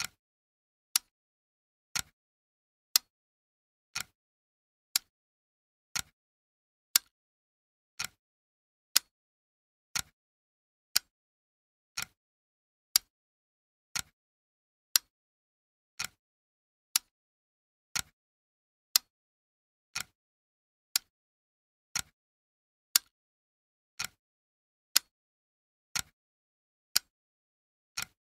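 Antique clock ticking steadily, about one sharp tick a second, with silence between the ticks.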